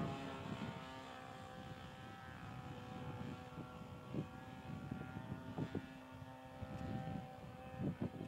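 Radio-controlled model airplane flying overhead, its motor and propeller giving a steady, fairly faint hum with several overtones. Wind rumbles on the microphone in gusts underneath.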